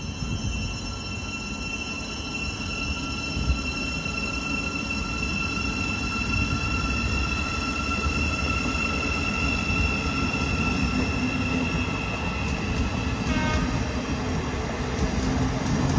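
Electric multiple-unit passenger train moving slowly along the platform. A steady high two-tone whine fades out about thirteen seconds in, over a low rumble that grows gradually louder.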